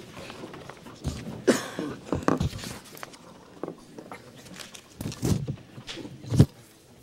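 A group of people sitting back down in office chairs: chairs shifting and knocking, with shuffling and rustling, and a few thumps, the loudest about six seconds in.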